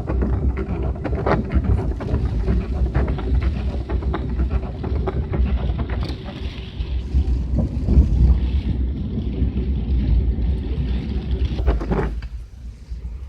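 Gusty wind buffeting the microphone with a heavy low rumble, rain ticking through it. The wind eases about 12 seconds in.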